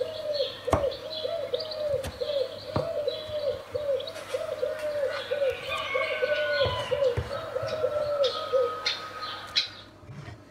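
Birds chirping, with one repeating a short mid-pitched call about three times a second, which stops near the end. Over them, a few sharp knocks of a kitchen knife striking a wooden chopping board as tomatoes are chopped, the loudest about a second in.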